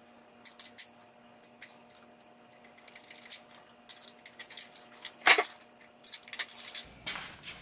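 Light metallic clicks and scrapes of a small hand pick working at the hose clamps and rubber fuel lines of an old outboard motor, with one louder click a little past five seconds.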